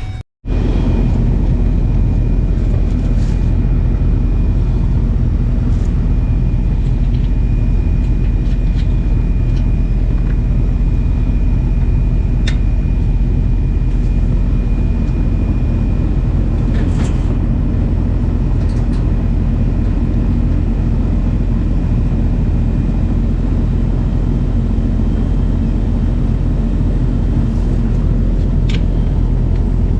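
Steady vehicle rumble of engine and road noise, as from inside a moving truck, with a faint steady high whine through most of it and a few light clicks.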